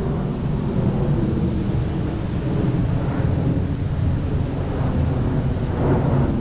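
Wind buffeting the camera's microphone: a steady, fluttering low rumble.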